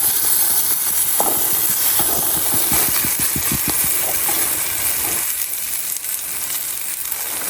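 Harissa sauce with oil and diced pepper sizzling steadily on a titanium plate, with a quick run of light clicks about two to four seconds in.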